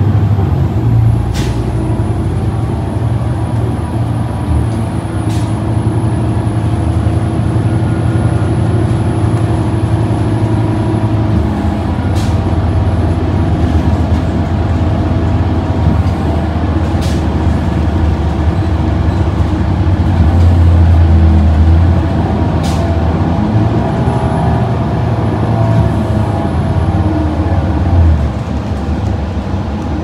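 Cabin sound of a 2023 New Flyer Xcelsior XD40 city bus under way: its Cummins L9 diesel engine drones low and steady, with a few sharp clicks and rattles. The engine swells for a couple of seconds about two-thirds of the way in, then eases off near the end.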